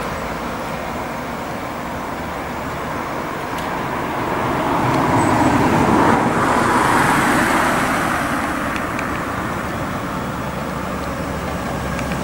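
Road traffic: a vehicle passing along the road, its tyre and engine noise growing to its loudest about six seconds in and then fading away.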